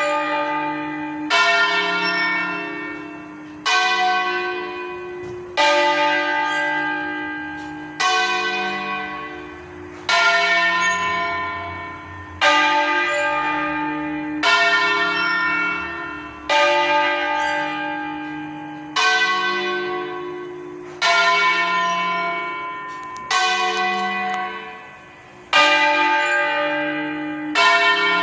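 Church bells in a campanile rung by hand 'a stanga' (by lever), several bells of different pitch sounding in turn. A fresh strike comes about every two seconds, each ringing out and fading before the next.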